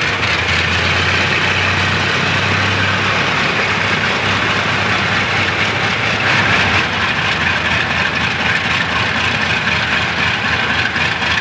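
Boeing B-29 Superfortress's Wright R-3350 radial piston engines running at low power as the bomber taxis past, a loud, steady engine noise with a deep hum that eases off about halfway through.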